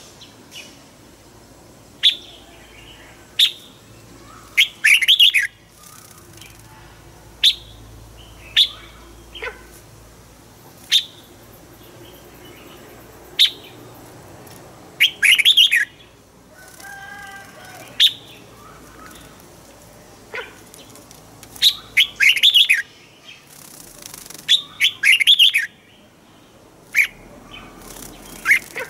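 Red-whiskered bulbul calling: sharp single chirps every second or two, broken about four times by quick warbled song phrases.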